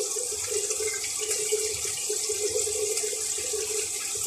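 Chicken pieces frying in hot oil, a steady sizzle, with a steady hum underneath.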